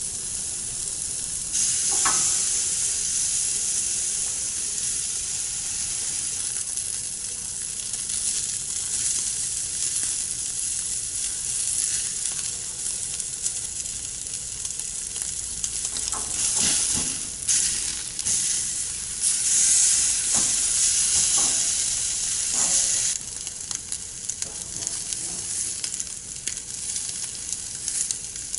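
Sous-vide-cooked steak pieces and a T-bone searing on the grate of a Camp Chef sear box set on high, near 900 degrees: a steady, loud sizzle that grows louder about a second and a half in as more meat goes on, with a few short clicks of tongs against the grate.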